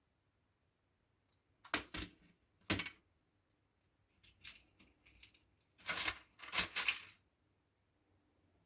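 Sharp clicks and short clattering of small hard objects being handled: a few clicks about two seconds in, then a longer clatter around six to seven seconds in.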